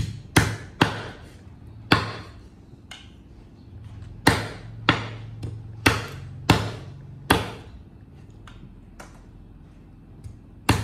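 Cleaver chopping raw meat on a round wooden chopping board: about a dozen hard, irregularly spaced strikes, with a few weaker ones near the end.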